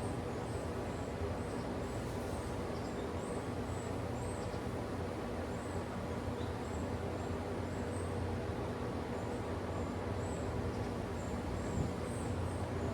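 Steady wind blowing through trees, with a low rumble of wind on the microphone, over faint high chirps repeating every second or so.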